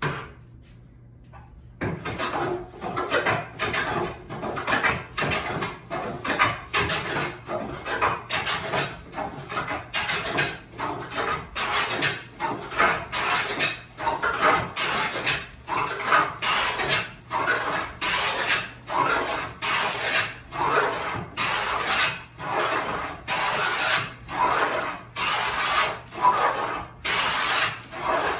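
Rhythmic strokes of a hand tool working wood, about one and a half strokes a second, starting about two seconds in after a single knock.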